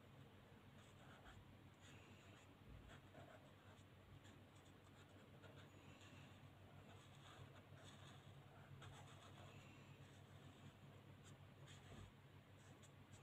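Faint, irregular scratching of an Ohuhu alcohol marker's tip stroking across colouring-book paper as areas are filled in, over a low steady hum.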